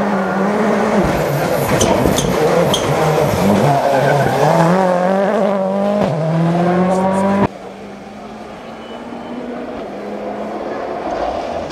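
Ford Focus WRC rally car's turbocharged four-cylinder engine at full throttle close by, its pitch climbing and dropping with gear changes. About seven seconds in the sound cuts to a quieter rally car engine approaching and growing louder.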